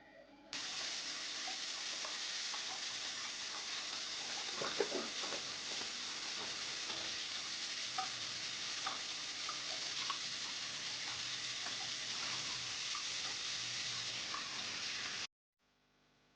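Food sizzling in a frying pan: a steady hiss dotted with scattered crackles and pops, one louder pop about five seconds in. It starts and stops abruptly.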